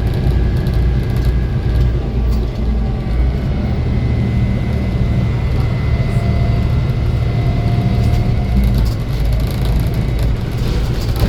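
Volvo B7 bus's seven-litre six-cylinder diesel running with a steady low rumble. A thin, steady high-pitched whine joins about two and a half seconds in and holds.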